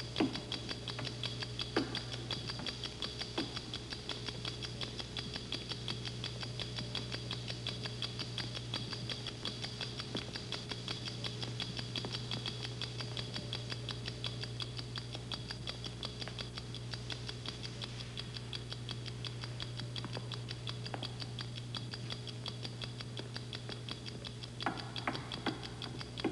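Fast, even clock-like ticking that runs steadily over a low, constant hum. A few louder clicks come in the first seconds, and a short cluster of louder knocks comes near the end.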